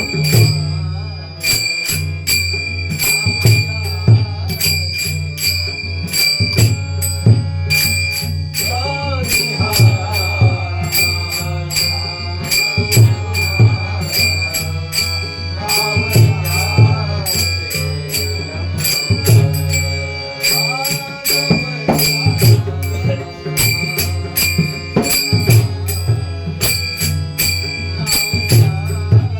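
Marathi Varkari bhajan music: small brass hand cymbals (taal) struck in a steady rhythm over a drum, with a singing voice drawing out long melodic lines in stretches.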